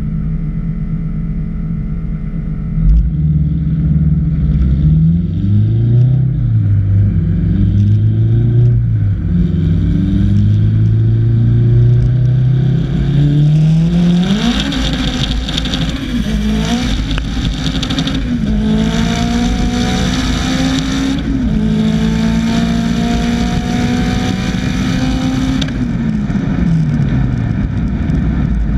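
Turbocharged four-cylinder race car engine revving up and down as the car rolls slowly. About 14 seconds in, a full-throttle drag launch pulls hard up through several gear changes with heavy wind rush. Near the end the throttle lifts and the engine note falls away to a coast.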